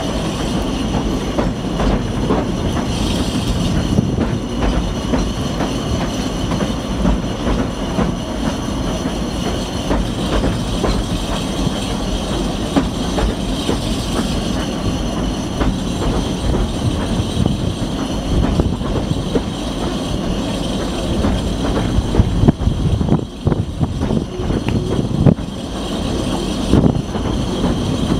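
Narrow-gauge heritage railway carriage running along the line: a steady rumble of wheels on track, with clicks over the rail joints and a thin, high wheel squeal over it.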